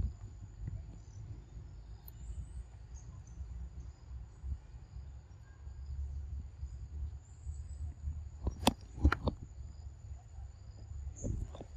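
Insects droning steadily in a single high-pitched note, over a low rumble. A few sharp cracks stand out about nine seconds in.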